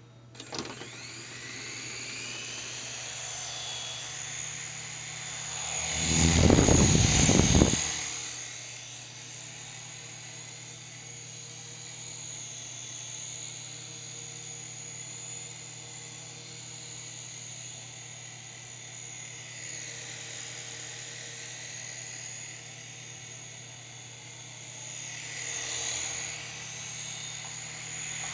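S107G mini RC helicopter's small electric motors and rotors spooling up with a rising whine about half a second in, then holding a steady high-pitched whir in flight. A loud rushing swell sweeps over it from about six to eight seconds in, and a smaller one comes near the end.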